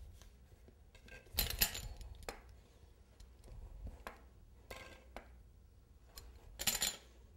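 Pizza-cutter wheel cutting a slab of fondant, its blade scraping and clicking against the countertop in a few short strokes, the loudest about a second and a half in and another near the end.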